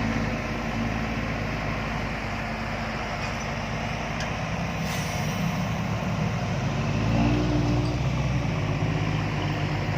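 Dump truck's diesel engine working hard as the truck drives through the mud. The engine note grows louder and climbs about seven seconds in.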